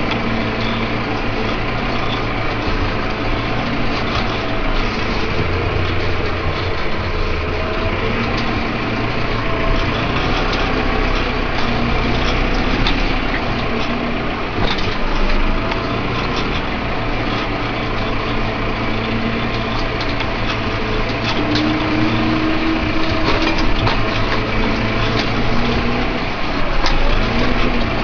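Valtra N141 tractor's diesel engine running steadily under ploughing load, with scattered light clicks and rattles.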